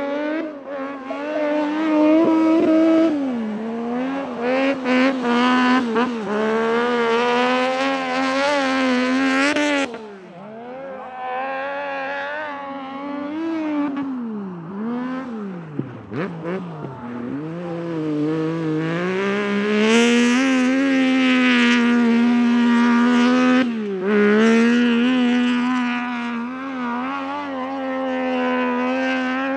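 Triumph 675 three-cylinder motorcycle engine in an Ape proto race car, driven hard on snow. It mostly holds high revs, and several times the revs drop away sharply and climb again, deepest around the middle.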